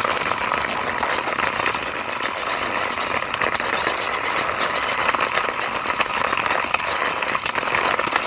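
Plastic wheels of a hand-pushed toy airplane rolling over rough concrete: a steady rolling noise full of fine rapid ticks.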